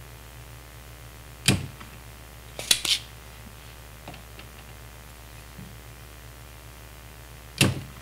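Edsyn Soldapullt spring-loaded desoldering pump firing with a sharp snap about a second and a half in as it sucks molten solder off a chip pin, then two quick clicks as its plunger is pushed back down and latched; it fires again with another snap near the end.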